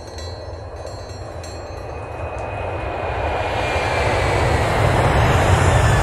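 Jet-engine-like roar, a starfighter sound effect, swelling steadily louder with a deep rumble and a faint falling whine.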